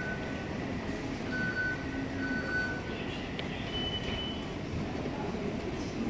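Taipei MRT fare gates beeping as cards are tapped: a few short, steady electronic beeps at two different pitches, over the steady background noise of the station concourse.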